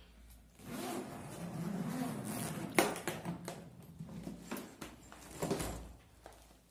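Zipper of a hard-shell suitcase being run open around the case, then a click, some handling and a soft thump as the lid is laid open near the end.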